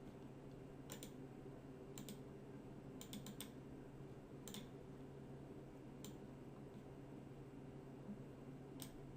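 Sparse computer mouse and keyboard clicks, about eight in all with a quick cluster around three seconds in, over a faint steady hum.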